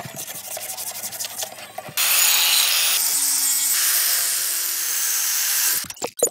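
A brush scrubbing a rusty steel cleaver blade in soapy water in repeated strokes. About two seconds in, an angle grinder starts grinding the blade: a loud steady hiss with a faint motor whine. It cuts off just before the end, and a few short clicks follow.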